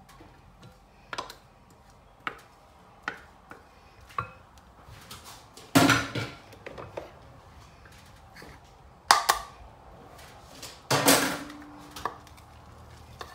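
Kitchen utensils and dishes knocking and clinking: a few light taps, then three louder clatters, the last leaving a short ring.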